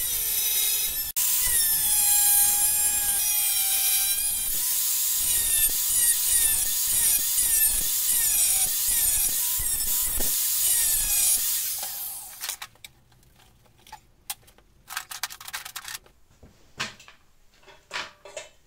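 Angle grinder with a cut-off disc cutting into a steel tube, its pitch sagging and recovering again and again as the disc is pressed into the metal. The grinder stops about twelve seconds in and winds down, followed by a few short scraping and tapping sounds.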